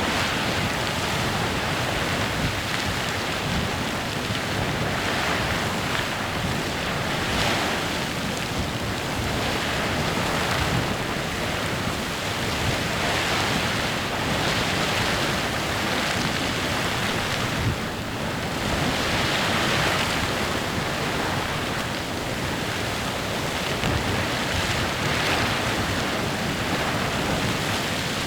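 Clepsydra Geyser erupting: a steady rush of splashing water and hissing steam, swelling and easing every few seconds.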